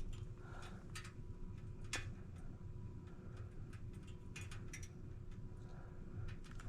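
Scattered light clicks and taps from handling small objects, a few seconds apart, over a low steady hum.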